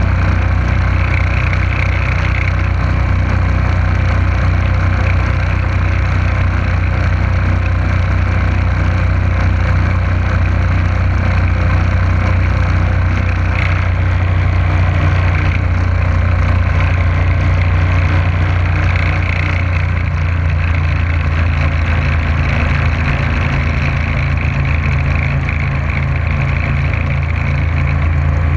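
Motorboat engine running steadily at cruising speed, with the rush of water and wind as the boat moves. Its note shifts slightly about twenty seconds in.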